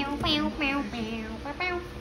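A young girl singing a short phrase of about five notes, each held briefly, with small breaks between them.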